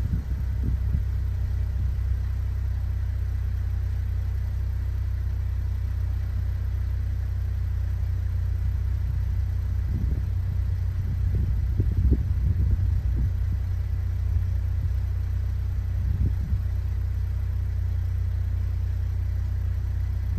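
Buick Regal GS engine idling steadily after a cold start, heard at the exhaust tips, a constant low drone with a few brief louder puffs in the middle.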